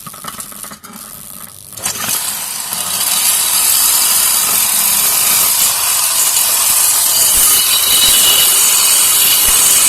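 Electric hand drill in a homemade drill-press stand starts up about two seconds in and runs steadily at speed, its bit grinding into steel tubing. The bit is blunt and cuts with difficulty.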